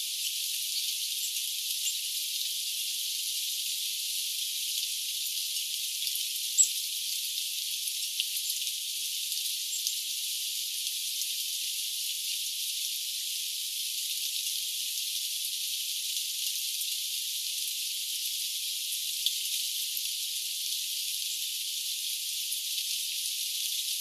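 Steady rain falling, heard as a thin, even hiss with no low end, with a few faint ticks and one sharper tick about six and a half seconds in.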